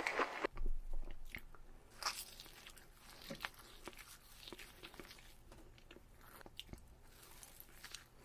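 A person biting and chewing cloud bread close to the microphone, with scattered short, wet mouth clicks. Louder for about the first half second, then quieter.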